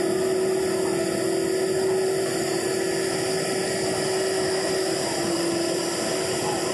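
Airbus A330 airliner's twin jet engines at low thrust, a steady whine over a rushing hiss, as the aircraft taxis and turns onto the runway before its takeoff roll.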